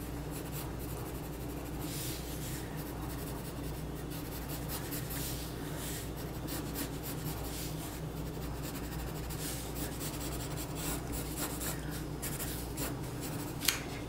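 Graphite pencil scratching on drawing paper in quick, irregular strokes of sketching and shading, over a steady low room hum. Near the end a single sharp tap as the pencil is set down on the paper.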